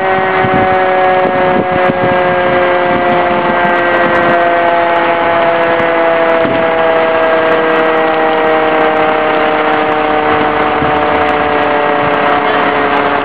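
Fire truck engine running fast, a loud, steady drone of several tones that slowly sinks in pitch.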